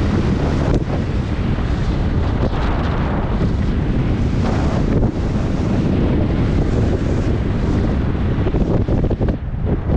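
Wind buffeting the microphone of a camera worn by a skier going downhill at speed, with skis hissing and scraping over groomed snow. A loud, steady rush, easing briefly near the end.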